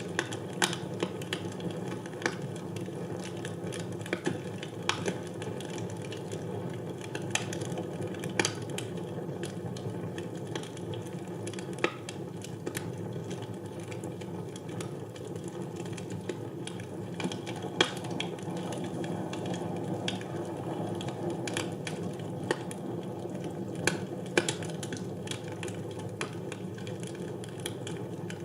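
Wood fire burning in a fireplace: a steady low rumble of flames with irregular sharp crackles and pops from the burning logs.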